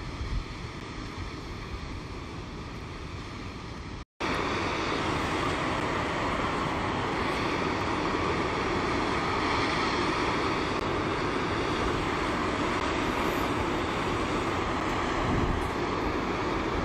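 Water rushing steadily over the ledge of 76 Falls. It cuts out briefly about four seconds in and resumes louder.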